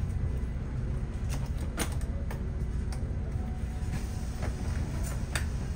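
Inside a moving city bus: a steady low rumble of engine and road, with scattered sharp clicks and rattles a few times.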